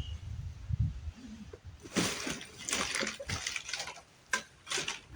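Rotten wooden shed timbers cracking, with debris clattering in irregular bursts from about two seconds in, after a low rumble in the first second; the weakened structure is being worked on but does not collapse.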